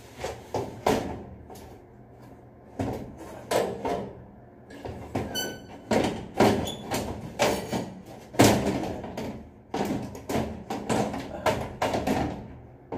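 Louvred metal reflector cover of an elevator ceiling light knocking and rattling against the fixture frame as it is pushed back into place: a string of irregular clanks and taps, the loudest about eight seconds in, with a brief high metallic ring about five seconds in.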